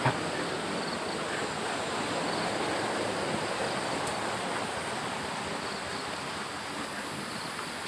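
Floodwater rushing steadily over a small cascade in a rain-swollen stream.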